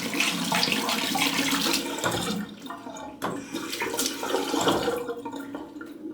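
Water running from a tap and splashing into a sink.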